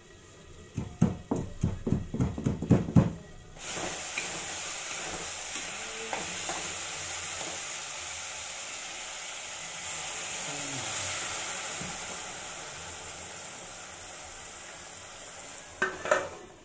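About three seconds of rhythmic knocking of a pestle pounding ginger in a wooden mortar, then a sudden, steady sizzle as a wok of potato and mushroom curry frying is uncovered and stirred. Near the end, a few metal knocks as the lid goes back on the wok.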